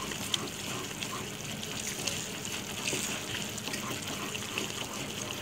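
Thick halwa mixture of maida, sugar and ghee bubbling and sizzling in a pan over a low flame as a wooden spoon stirs it, with small pops and ticks throughout.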